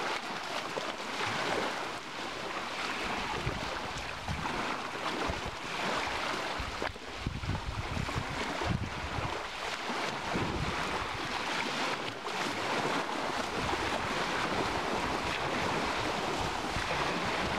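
Small sea waves washing up onto a shore of coarse coral rubble and running back, with wind buffeting the microphone in irregular low rumbles.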